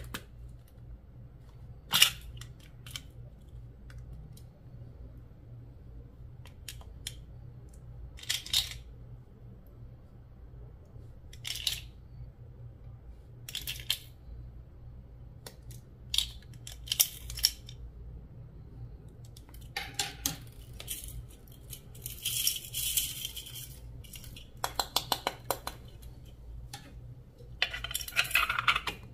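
Slime being handled and worked by hand: scattered short sticky crackling and clicking sounds, a second or a few seconds apart, coming in quicker clusters near the end, over a faint steady low hum.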